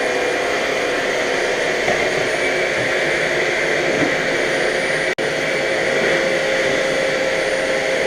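Vacuum cleaner running steadily with a high whine, its note holding even, with an instant's drop-out about five seconds in.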